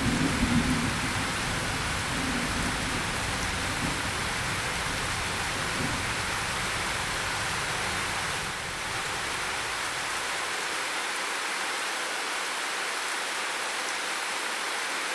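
Steady rain hiss, with the tail of a low thunder rumble fading away in the first second or so.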